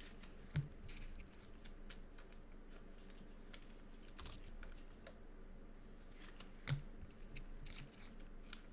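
Faint scattered clicks and light taps of things handled at a desk, with two soft thumps, one about half a second in and one near seven seconds in.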